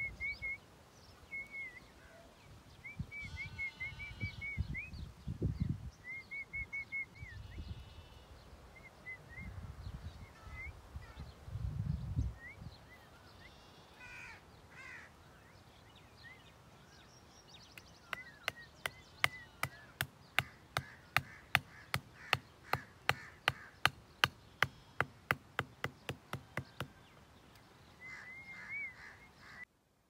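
A claw hammer taps a small wooden stake into dirt in a quick, even run of about thirty sharp strikes, roughly three a second, over the second half. Birds call repeatedly throughout, with short arching notes, along with rustling from handling sticks in the first half.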